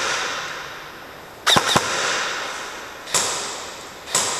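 Airsoft guns firing single shots: sharp cracks, a quick pair about a second and a half in, then one roughly each second after. Each crack echoes and dies away slowly through a large, empty concrete hall.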